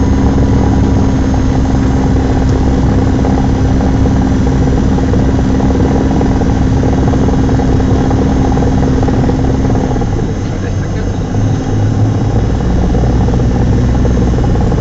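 Cessna 172's piston engine and propeller running at low taxi power, heard inside the cabin as a steady drone. About ten seconds in the pitch drops and the sound dips briefly, then steadies again.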